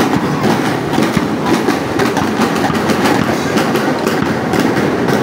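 Loud, continuous din of a street parade: crowd noise mixed with a dense, irregular clatter of short knocks.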